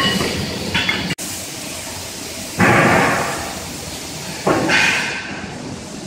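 Workshop noise echoing in a large factory hall: a steady clatter and rumble, broken by two loud bangs about two and a half and four and a half seconds in, each ringing on for about a second.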